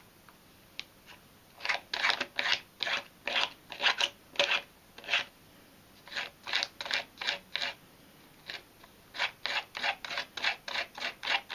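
A small hand file rasping along the edge of a wooden fingerboard deck in short, quick strokes, about three a second, in three runs with brief pauses, filing through the overhanging graphic sticker to trim it to the deck's edge.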